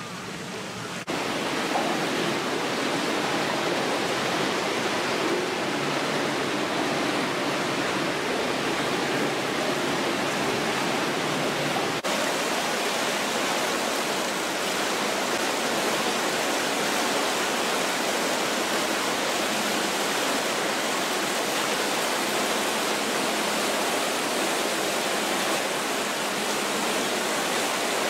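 Steady rushing noise of running water, starting about a second in.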